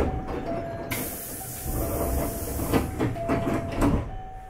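Hankyu 8300 series train's pneumatic door gear at a station stop: a short burst of air hiss about a second in, then a few knocks around three to four seconds in as the sliding doors shut before departure.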